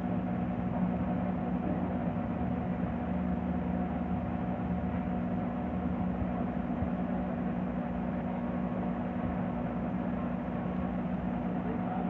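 Midea MTA E21 microwave oven running on a heating test: a steady electrical hum with fan noise, without the loud noise it made before the burnt, shorting plate inside was removed.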